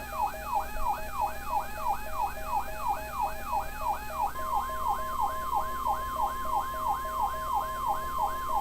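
Electronic emergency alert tones: an alarm repeating a falling sweep about three times a second, joined about four seconds in by a steady single-pitch weather radio warning tone. This is the attention signal that comes before a severe thunderstorm warning broadcast.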